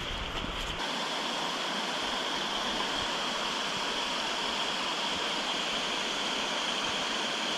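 Waterfall's steady rush of falling water. A low rumble of wind on the microphone dies away about a second in.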